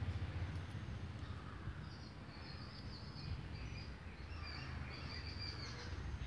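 Faint outdoor background noise with a low rumble, and a bird calling in short chirps from about two seconds in until near the end.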